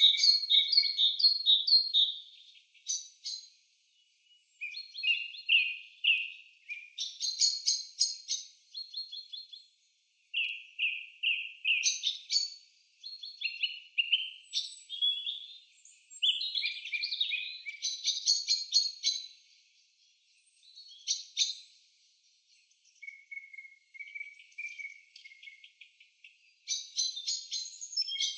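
A songbird singing in phrases of rapid chirps and trills, each a second or two long with short pauses between them, all high-pitched.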